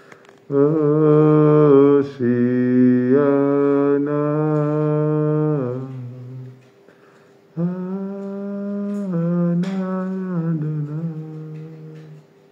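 A man singing a slow wordless melody, a niggun, in long held notes. It comes in two phrases with a short break about halfway through.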